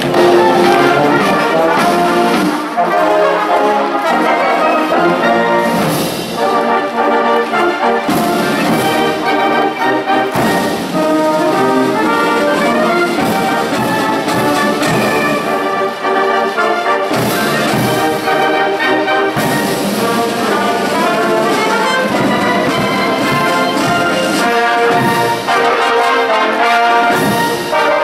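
Massed Guards military bands playing brass-led band music as they march, with trombones, trumpets and clarinets.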